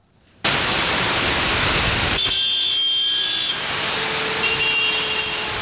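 Heavy city traffic: buses, trucks and cars running in a dense jam. A loud, steady wash of engine and road noise cuts in suddenly about half a second in.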